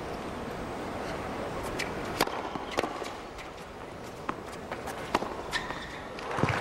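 Tennis ball struck by rackets in a rally: several sharp hits, the first two about half a second apart, over a steady hum of the stadium crowd.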